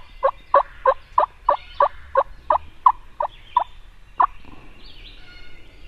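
Wild turkey yelping: an even run of a dozen short yelps, about three a second, that stops with one last note just after four seconds. Faint songbirds sing in the background.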